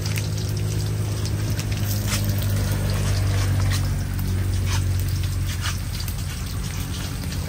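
A small engine running with a steady hum, while water pours and splashes.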